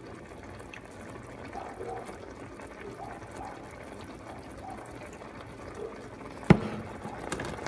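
Soy sauce and brown sugar bubbling gently around chicken breast in a skillet, a steady soft simmer with faint pops. A single sharp knock about six and a half seconds in.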